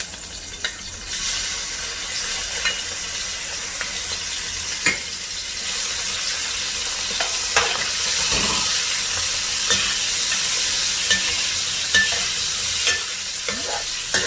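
Prawns frying in hot oil in a pan, a steady sizzle with scattered crackles and pops and the occasional scrape of the utensil stirring them.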